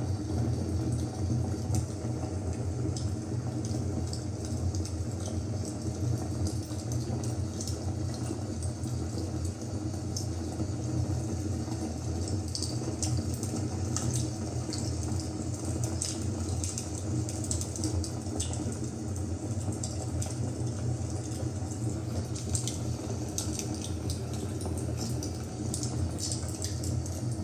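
A fire burning: a steady low rush of flames with many scattered crackles and pops.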